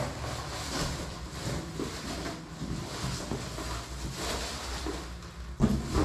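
Cardboard box and plastic fan parts being handled: scraping and rustling as the fan head is slid out of its box, with a sharp knock right at the start and a few louder bumps near the end.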